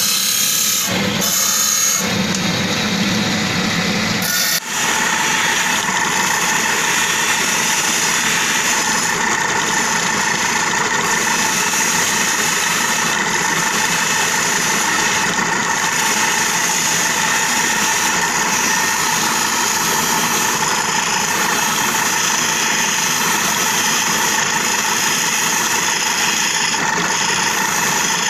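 A turquoise stone is ground and polished against a spinning motor-driven lapidary wheel: a steady grinding rasp over the machine's whine. For the first few seconds the grinding comes in short, broken passes, then about four and a half seconds in it changes abruptly into continuous grinding.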